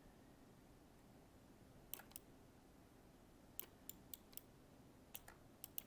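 A computer mouse being clicked: about nine short, sharp clicks in irregular groups from about two seconds in, over faint room tone.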